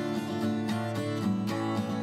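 Background music: acoustic guitar strumming and plucking a steady rhythmic pattern.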